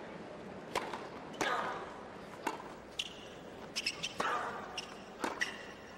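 Tennis ball struck by rackets and bouncing on a hard court during a rally: a series of sharp pops about a second apart over low steady background noise.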